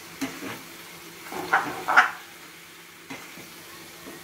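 A ladle stirring chopped fruit in ghee in a nonstick frying pan: a few short scrapes and shuffles of the pieces, the two loudest about a second and a half and two seconds in, with a faint steady hiss between them.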